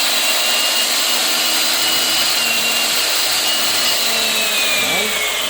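Oxford 1800-watt 10-inch miter saw running at full speed with its blade spinning free, a steady high motor whine. Near the end the pitch begins to fall slowly.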